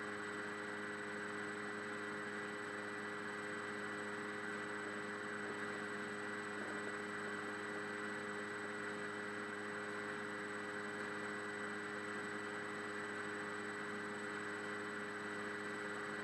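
Steady electrical hum and hiss of an open phone line, with several steady tones and no voices, while the call waits on the agent.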